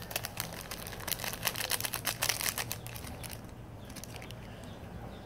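Plastic pancit canton instant-noodle packet crinkling and crackling as it is handled and opened: a quick run of sharp crackles for about three seconds, then fainter rustling.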